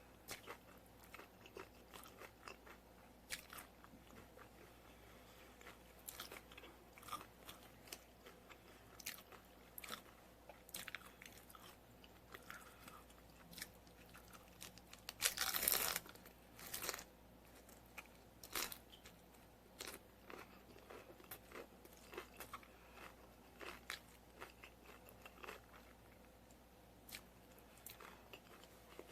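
Close-miked eating: crunchy taco shells being bitten and chewed, a steady run of short crisp crunches with one loud, longer crunch about halfway through.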